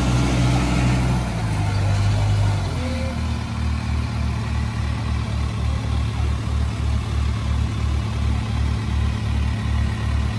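Heavy diesel engine running under load as a loaded tractor-trailer works through deep mud. Its note shifts twice in the first few seconds, then settles into a low, even beat about three times a second.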